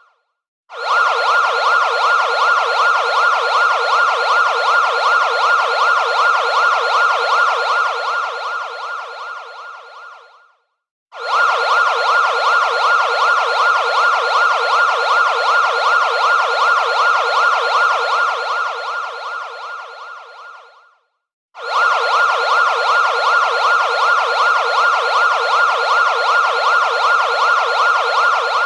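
Siren sound effect with a rapidly sweeping wail, played as a loop. Each run lasts about ten seconds and fades out, then starts again abruptly: once about a second in, again near the middle, and again about two-thirds of the way through.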